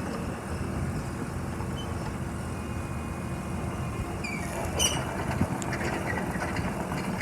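JCB 8065 midi excavator's diesel engine running steadily. Around four to five seconds in come a short rising squeal and a couple of sharp metallic clanks from the machine.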